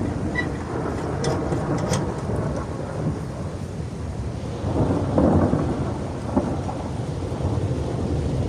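Thunder rumbling over steady rain, swelling to its loudest about five seconds in. Two light clicks come in the first two seconds.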